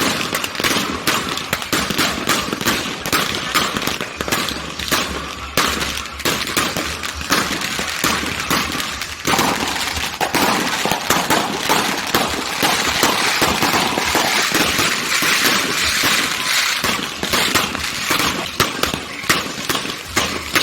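Fireworks going off in rapid succession: a dense, continuous crackle of many sharp bangs and pops, thickening into a fizzing crackle partway through.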